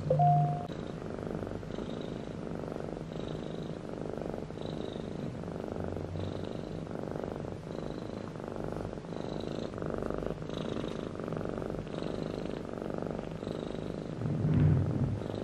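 Cat purring, steady, its rhythm swelling and easing about once a second with each breath, from a mother cat nursing her 18-day-old kittens. A brief louder sound comes just after the start and another near the end.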